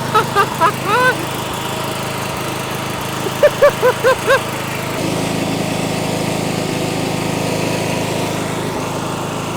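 John Deere S92 riding mower engine running steadily, its note growing slightly stronger about halfway through as it is worked harder. A man gives short whoops over it near the start and again a few seconds in.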